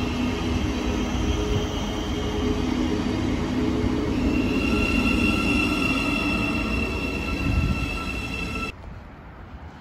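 Thameslink Class 700 electric multiple unit running past the platform: a steady rumble of wheels on rail with a high, steady whine over it. The sound cuts off abruptly near the end, leaving a faint hum.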